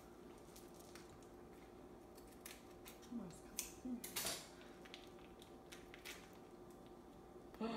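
A few light clicks and clinks of kitchenware handled at a sink, bunched about three to four and a half seconds in, over a faint steady hum.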